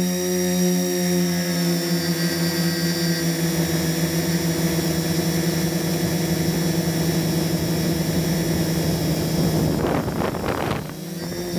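Turnigy SK450 quadcopter's electric motors and propellers whining steadily at several pitches at once. About ten seconds in the pitches waver and glide as the throttle changes, and the sound dips briefly before settling back.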